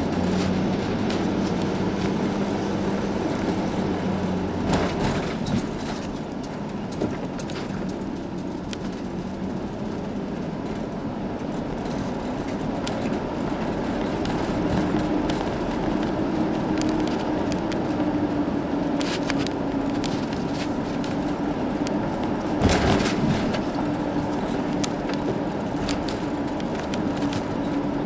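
Car driving, heard from inside the cabin: steady engine hum and road noise, the engine note a little higher in the second half. A few short knocks, the loudest about three-quarters of the way through.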